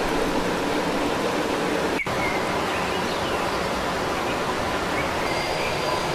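Steady rushing noise of running water, with a few faint, short, high bird chirps. The sound drops out for an instant about two seconds in.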